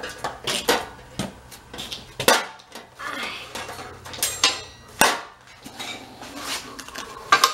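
Sheet-metal parts of a Char-Broil grill clanking and rattling as they are handled and fitted together: a string of irregular sharp clinks and knocks with some metallic ring.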